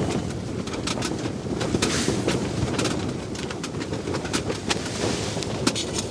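Wind buffeting the tent: a steady low rumble, with frequent short clicks and rattles over it.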